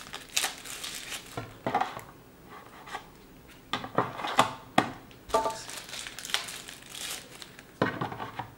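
Wrapping crinkling as it is handled, with several sharp clicks and knocks of hard plastic as drone batteries are fitted into their charging hub.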